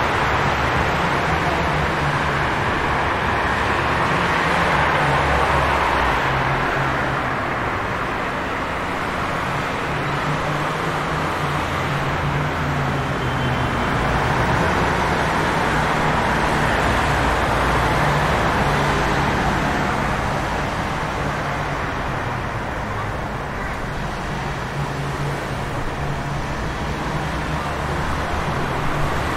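City traffic on a rain-wet street: a steady hiss of tyres and rain over a low rumble of engines, slowly swelling and easing.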